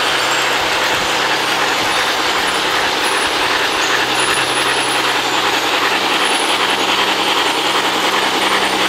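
O-gauge model steam locomotive and freight cars running on three-rail track: a steady whirring rumble of motors and wheels, with a low steady hum that grows stronger about four seconds in.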